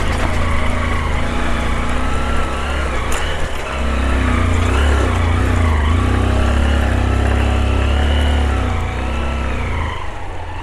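Motorcycle engine revving under load as the bike climbs a slippery mud hill track, its pitch rising and falling with the throttle. It is loudest in the middle and eases off near the end.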